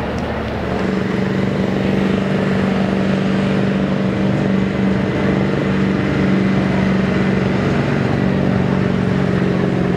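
Pickup truck engine running hard at steady high revs under heavy load as the truck pulls a weight-transfer sled down the dirt track. The engine note holds an almost constant pitch, loud and continuous.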